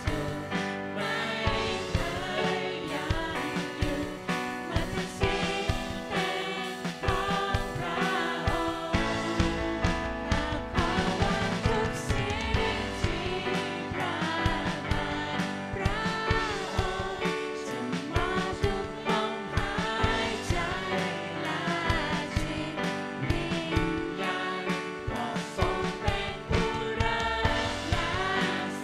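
Live worship song: a woman sings the lead into a microphone over keyboard, acoustic guitar and drums keeping a steady beat.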